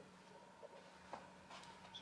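Near silence: faint steady room-tone hum, with a few soft ticks in the second half.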